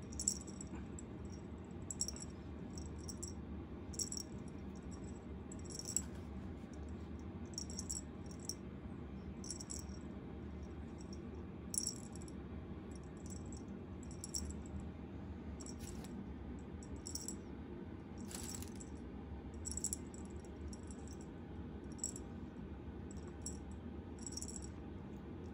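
Light, high-pitched rattling or jingling ticks at irregular spacing, about one every second or so, over a steady low hum.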